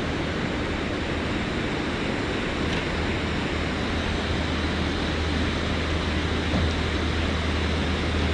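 Steady rushing of water released through a dam's open spillway gate, a continuous noise with a constant low rumble underneath.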